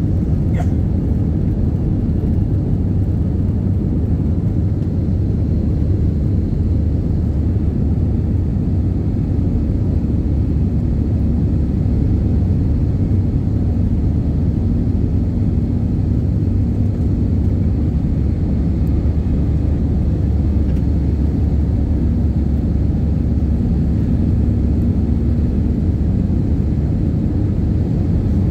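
Steady low rumble of an airliner's jet engines and airflow, heard inside the passenger cabin.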